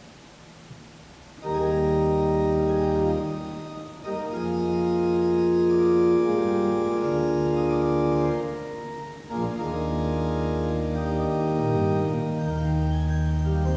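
Church organ playing loud sustained chords over a deep pedal bass, coming in about a second and a half in; the chords break off briefly twice, near four and nine seconds.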